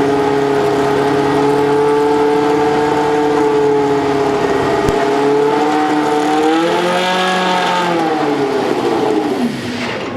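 A racing car's engine running at high revs with a steady, pitched note. Over the last few seconds the pitch swells briefly and then falls steeply away, as the car goes past.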